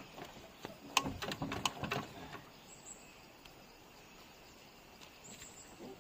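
A quick cluster of knocks and scrapes from about one to two seconds in as the mud-stuck auto-rickshaw is shoved and rocked by hand, then only a faint steady outdoor background.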